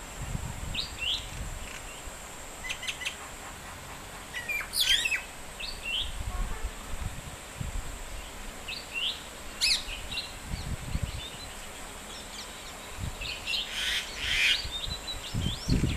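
Birds chirping in short, high calls and brief trills, scattered irregularly, with occasional low rumbles underneath.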